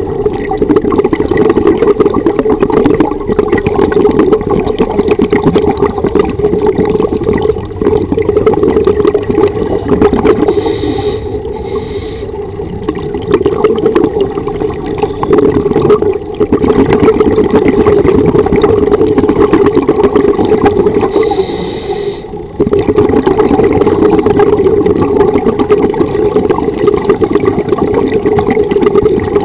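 Scuba regulator exhaust bubbles heard underwater: a loud, continuous crackling bubbling that eases off briefly a few times between breaths.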